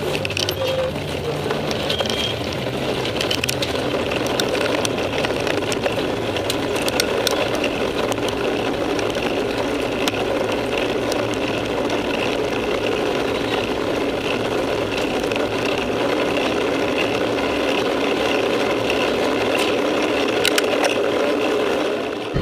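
A pack of mountain bikes riding over cobblestones, heard from a camera mounted on one of the bikes: a steady rattle of the bikes and tyre noise, with scattered clicks.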